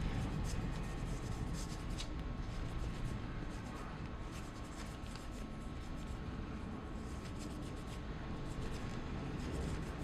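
Scratchy rubbing as excess black shoe polish is buffed off a boot heel after the shine has dried.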